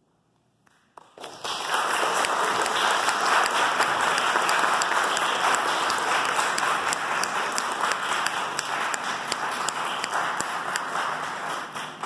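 Audience applauding. The applause breaks out about a second in, after a brief silence, stays full and steady, then begins to thin out near the end.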